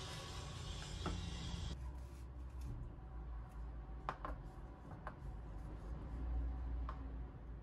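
Quiet kitchen handling as cut seaweed rolls are tossed in frying powder in a plastic bowl: a few light clicks and taps of chopsticks, with soft rubbing. A steady hiss stops abruptly about two seconds in.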